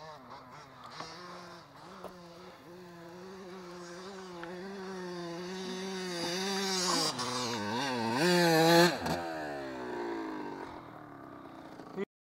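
Dirt bike engine running and growing steadily louder, its revs swinging up and down a few times at the loudest point, then falling away in pitch as it fades. The sound cuts off suddenly near the end.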